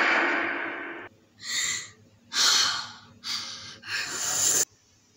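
A loud rushing noise fades out over the first second. Then come four sharp, heavy breaths or gasps about a second apart, the last cut off abruptly.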